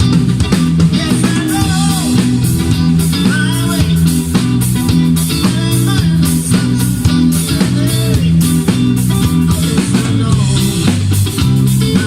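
Band music with guitar and a steady drum-kit beat, with a few wavering melodic lines above that may be singing.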